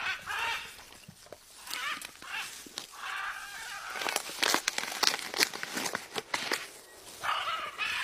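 Blue-and-yellow macaw giving several short calls, with a quick run of sharp clicks and knocks in the middle as its beak works at a green coconut.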